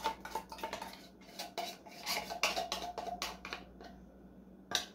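Spoon scraping and clinking inside an opened tin can, working thick sweetened condensed milk out: quick strokes about three a second that stop a little under four seconds in, with one last clink near the end.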